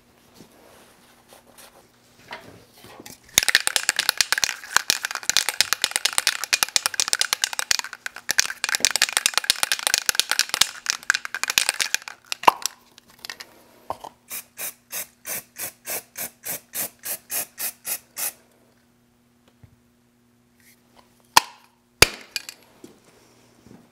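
Aerosol cans from a dye penetrant crack-testing kit: a long spray hiss of about eight seconds, then a spray can being shaken with its mixing ball rattling about three times a second, followed by two sharp clicks near the end.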